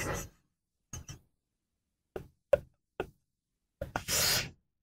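Two people laughing: a few short gasping bursts with dead silence between them, then a longer breathy burst of laughter about four seconds in.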